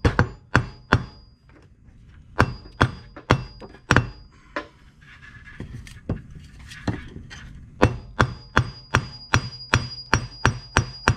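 Claw hammer striking a cable ferrule on the anvil of a steel bench vise, flattening it to crimp it onto the wire rope. The blows come in three runs, about two to three sharp strikes a second, with a few seconds of quieter handling noise in the middle.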